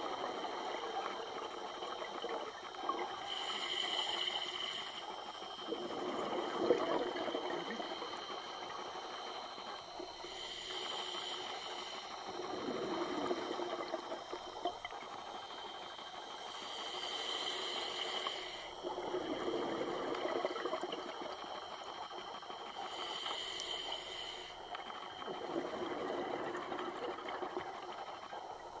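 Scuba diver breathing through a regulator underwater: four breaths, each a hissing inhale of about two seconds with a slight whistle, followed by a gurgling rush of exhaled bubbles.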